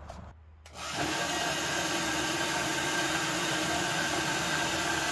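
Porter-Cable 7724 PortaBand portable metal band saw starting up about a second in and running at a steady speed, a motor and blade sound held even throughout.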